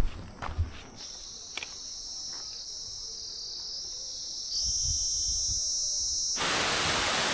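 Footsteps on a gravelly trail at the start, then a steady high-pitched insect drone that gets louder about four and a half seconds in. About six seconds in, an even rush of falling water takes over.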